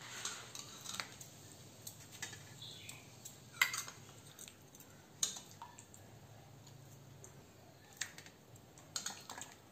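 Stainless steel ladle and bowls clinking as curry is ladled from a large steel bowl into small steel bowls on a steel plate: a few light, scattered clinks and taps, the loudest about three and a half seconds in.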